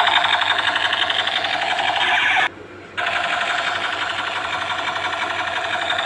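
Battery-powered toy gun firing continuously, a rapid mechanical rattling buzz that stops for about half a second midway and then resumes.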